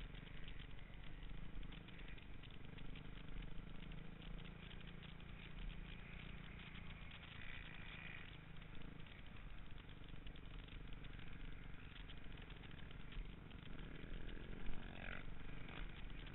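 Off-road vehicle engine running at low speed on a dirt track, heard from the vehicle itself, its note easing off about halfway through. A single sharp knock near the end.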